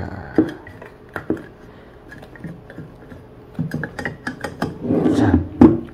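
A sheet-metal battery bracket and the plastic cases of sealed lead-acid batteries being handled into place inside a UPS: scattered light knocks and clicks, then a scraping rub ending in a louder knock near the end.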